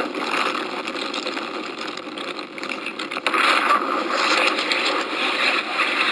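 Freefall wind rushing and buffeting over the camera's microphone during a tandem skydive, a steady, dense, fluttering rush.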